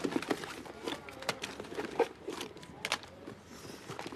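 Irregular clicks and knocks, with faint muffled voices in the background.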